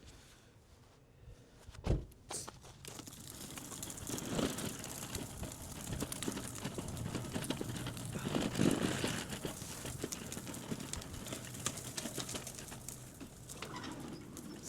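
Crinkling and rustling full of small clicks, with a single knock about two seconds in.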